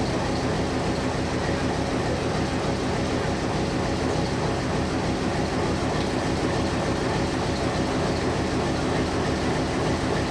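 WDM-3A diesel-electric locomotive's ALCO engine idling steadily close by, a constant low hum with a steady tone over engine noise.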